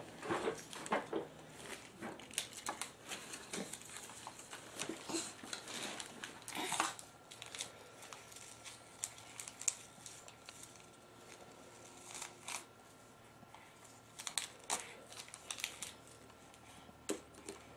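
Wrapping paper and foil crinkling and tearing under a baby's hands in quick, irregular bursts. The bursts are busiest in the first seven seconds and sparser after.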